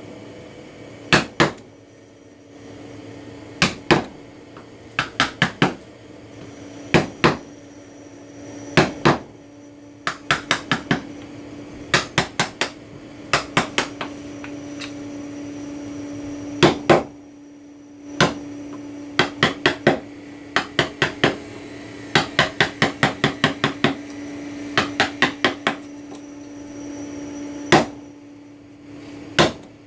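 A mallet striking a carving chisel as it cuts chips from a wooden panel: sharp knocks in quick runs of two to seven, with short pauses between runs.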